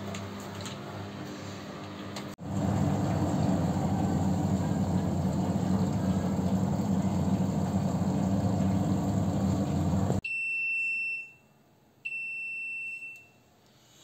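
IFB Senorita SXS front-loading washing machine running an empty descaling cycle with a steady hum. About ten seconds in the running stops and the machine gives two high electronic beeps, each about a second long, signalling that the cycle has finished.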